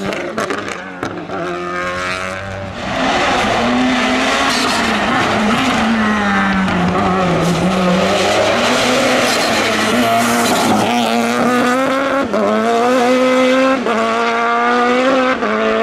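Turbocharged 1155 cc engine of a Citroen Saxo hill-climb race car under hard acceleration, revving up and shifting gears again and again. The pitch sags midway as it comes off the throttle, then climbs in several quick rising runs through the gears in the second half.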